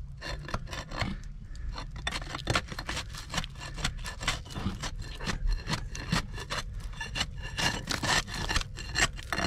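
Soft old mortar being scraped and raked out of a concrete-block joint by hand, a quick, irregular run of gritty scraping strokes. The mortar is so soft that it crumbles like sand, which the worker puts down to the cement having leached out of the mix.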